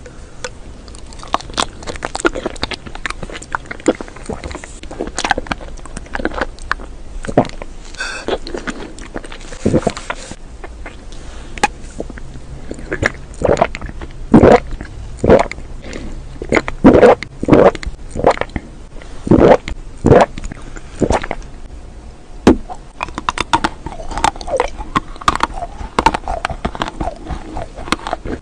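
Close-miked eating sounds: wet mouth clicks and smacks, with a run of louder bites and chewing about halfway through.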